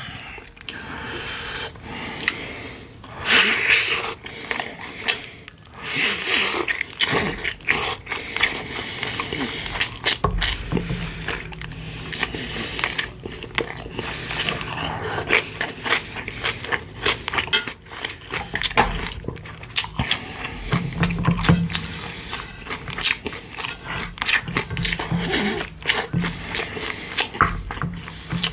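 Close-miked eating sounds of pork-bone soup and side dishes: wet chewing and lip smacking in many short clicks, with a low steady drone joining about ten seconds in.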